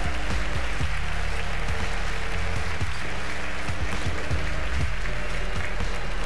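Audience applause mixed with music that plays held low notes changing pitch every second or so.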